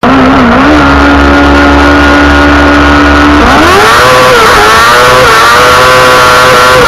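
Kartcross buggy's 600 cc motorcycle engine, recorded onboard, held at steady revs on the start line, then revving sharply up about three and a half seconds in as the buggy launches, its pitch rising and dipping as it accelerates away.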